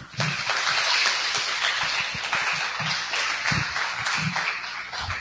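Audience applauding, a dense clapping that starts at once and fades toward the end.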